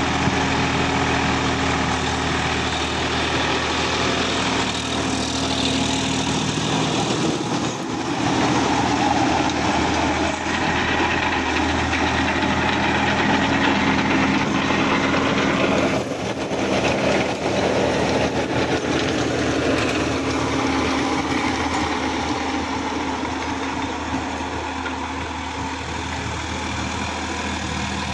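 Sonalika DI Supreme tractor's diesel engine running steadily as it drives a rotavator tilling soil. The engine note shifts about a third of the way in and again around the middle.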